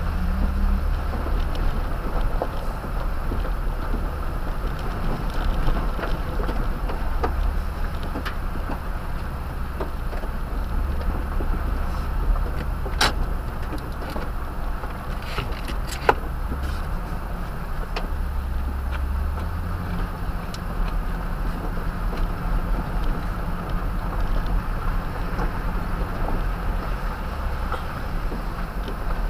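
Toyota Tundra pickup driving slowly over a gravel dirt road, heard from inside the cab: a steady low engine drone under rough tyre noise, with frequent small clicks and rattles from the bumps and a couple of sharper knocks a little past the middle.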